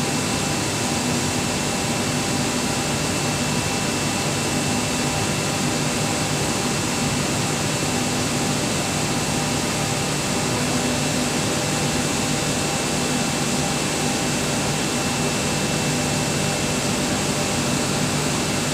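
BK37-8ZG screw air compressor running steadily: a loud even mechanical rush with a low hum and a thin, high, constant whine over it.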